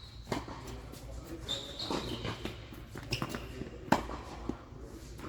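Tennis rally: the ball is struck by rackets and bounces on the court in a string of sharp knocks, the loudest about four seconds in, with short high squeaks of players' shoes on the court.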